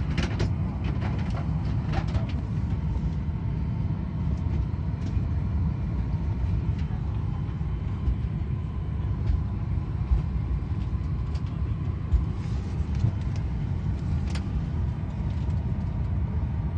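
Steady low rumble of an airliner cabin while the plane sits at the gate, with a faint steady whine above it and a few light clicks near the start.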